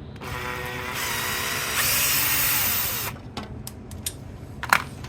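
Power drill/driver running a bolt on a homemade clutch-spring compressor for about three seconds, getting louder partway through, then a few sharp metal clicks of tools, the loudest near the end.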